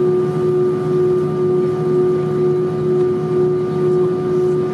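Airbus A320 cabin noise: a steady hum with a constant mid-pitched whine and a few fainter higher tones, unchanging throughout.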